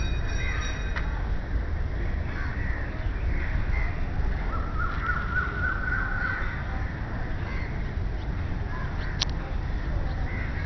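Crows cawing on and off over a steady low rumble.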